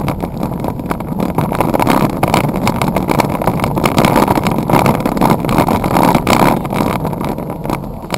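Steady rushing wind and road noise picked up by a bicycle's handlebar-mounted camera while riding along a wet road.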